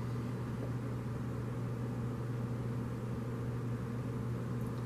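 Steady low hum with a faint, even hiss: room tone, with no distinct gulps or other events standing out.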